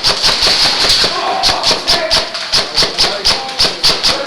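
Airsoft guns firing a rapid string of sharp shots, about six or seven a second, echoing in rooms and corridors.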